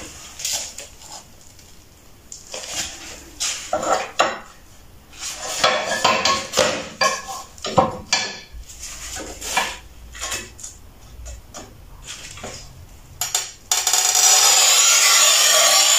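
Ceramic tile and metal tools clinking and knocking as a thick wall tile is handled and lined up for cutting. Near the end, a steady scratching hiss as a hand scoring knife is drawn along the tile's glaze to score the cut line.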